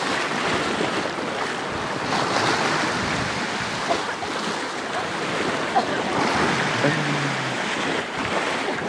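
Sea waves washing and lapping, with wind blowing across the microphone.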